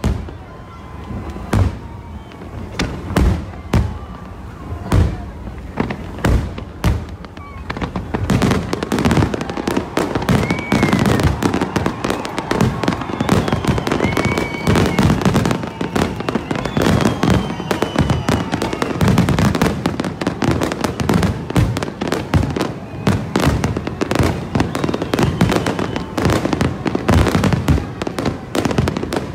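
Fireworks display: separate bangs at first, then from about eight seconds in a dense, rapid barrage of bursts and crackles.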